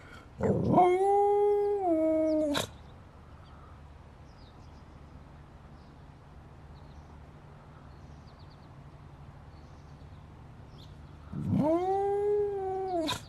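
A dog howling twice, about ten seconds apart. Each howl is long: it rises, holds, then steps down in pitch before cutting off.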